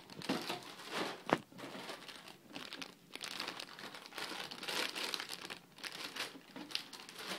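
Clear plastic bags holding plastic model-kit runners crinkling and rustling as they are handled and lifted out of a cardboard box, with one sharp tap about a second in.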